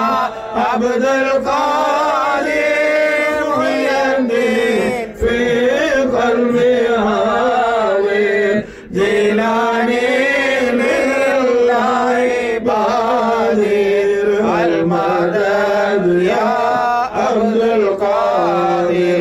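A man chanting a Sufi devotional hymn solo, with long, wavering melodic lines and a few short breaths between phrases.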